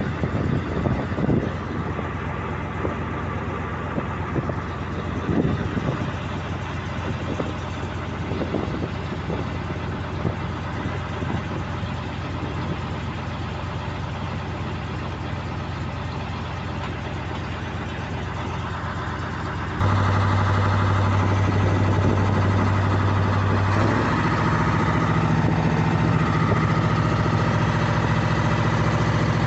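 Mitsubishi 8DC V8 marine diesel in a 15-ton boat, idling with some clatter. About two-thirds of the way through it turns suddenly louder, and a few seconds later it runs faster, its hum stepping up in pitch.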